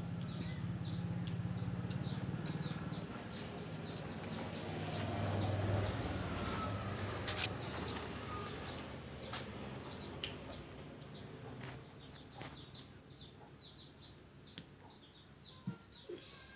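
Small birds chirping over and over, many short high chirps a second throughout. Under them a low rumble swells to its loudest about six seconds in and fades, and a few sharp clicks sound near the end.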